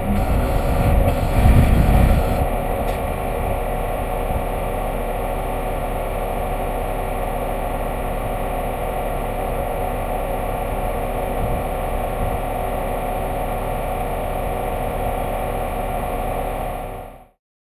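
Water tender fire truck's diesel engine running steadily at idle, with a heavier rumble in the first couple of seconds as the truck rolls over rough ground. Cuts off suddenly near the end.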